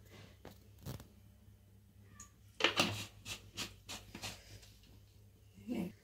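Kitchen handling noises: a couple of light knocks, then a quick run of about half a dozen sharp clicks and scrapes about two and a half seconds in, and a dull knock near the end.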